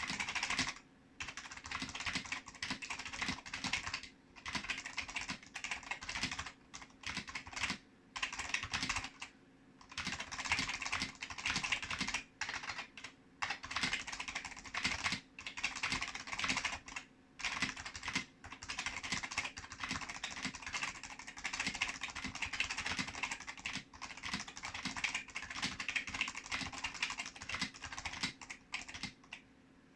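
Typing on a vintage Fujitsu 4700 keyboard with Fujitsu Peerless switches: a fast, continuous run of key clicks. It breaks off in brief pauses every few seconds and stops just before the end.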